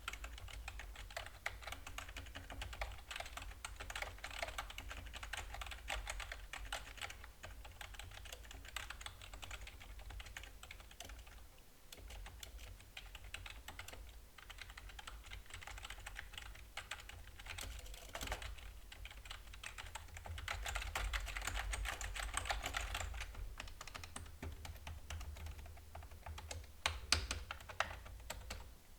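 Typing on a Logitech Wave keyboard, a wireless non-mechanical keyboard: a continuous patter of soft plastic keystrokes, faster for a few seconds past the middle, with a couple of louder single key hits near the end. The clatter has the hollow, thin, cheap-sounding character of its plasticky build.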